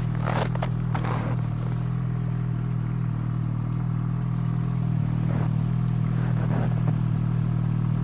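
Snowmobile engine idling steadily, with scraping and crunching in snow during the first second and a half and more faintly again about five to seven seconds in.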